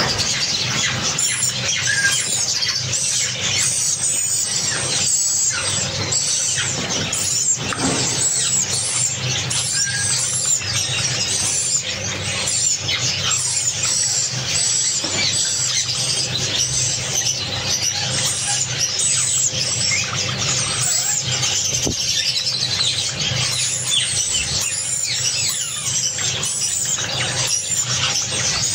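A flock of Java sparrows chirping continuously, many short high calls overlapping into a dense chatter.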